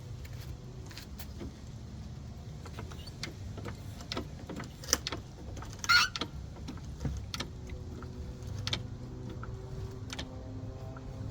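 Scattered small clicks and knocks from handling metal tools and parts, with a louder clank about six seconds in, over a low steady hum.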